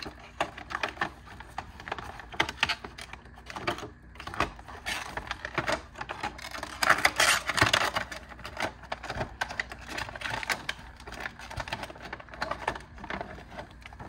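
Hands handling small plastic items and packaging: a rapid, irregular run of light clicks and rustles, loudest about seven seconds in.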